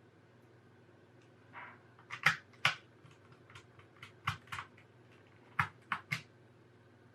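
Small plastic clicks and taps from a Nintendo 2DS shell and small parts being handled and fitted during reassembly: a brief scrape, then about seven sharp, irregular clicks over a faint low hum.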